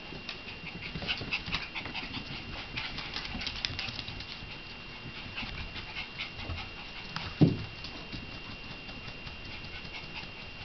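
Shiba Inu puppies and their mother moving about on a hardwood floor: a patter of quick light clicks and scuffles with dog panting, and one short, sharp sound dropping in pitch about seven seconds in, the loudest of the lot.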